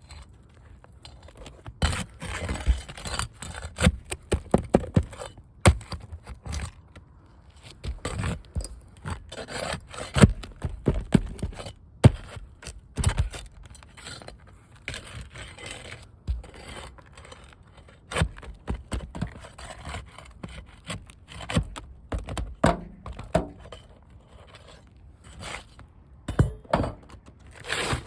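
Irregular scraping with sharp knocks and clicks at uneven intervals, as of a part being worked loose and replaced by hand.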